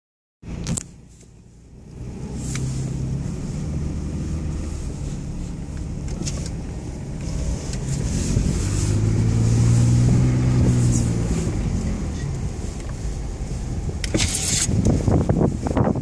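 Car engine running, its pitch rising and falling in a slow swell that is loudest about ten seconds in. Gusts of wind buffet the microphone near the end.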